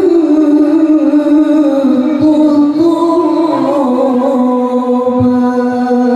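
A man's solo voice in melodic Quran recitation (tilawah) through a microphone and sound system. He holds long, ornamented notes that waver and slide, rising in the middle and settling on a long held note near the end.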